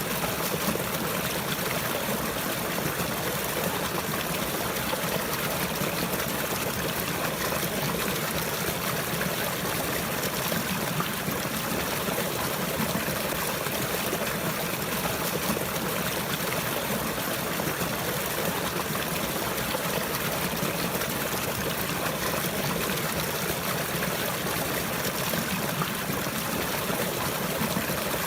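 Flowing water running and trickling steadily, an even rushing hiss with no change.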